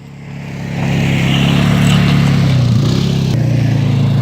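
A loud motor running steadily, building up over the first second and then holding an even pitch.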